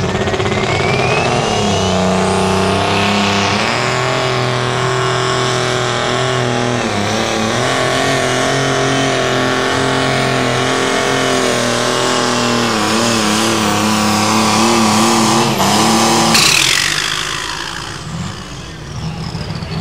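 John Deere light limited super stock pulling tractor's turbocharged diesel engine running at full throttle under load of the sled, with a high whine rising over the first couple of seconds. About sixteen seconds in the engine is throttled back and the whine falls away as the pull ends.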